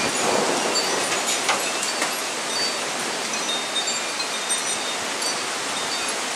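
Metal-tube wind chimes ringing with scattered high notes over a steady hiss of heavy hail and rain, with a couple of sharp ticks from hailstones striking.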